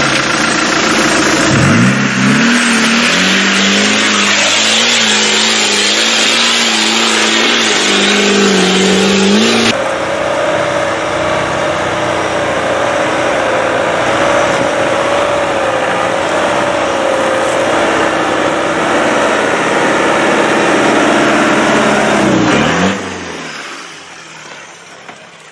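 Land Rover Defender 90 engine revving hard under load off-road. The revs rise about two seconds in and are held high with a slightly wavering pitch. Near the end they drop away and the sound falls much quieter.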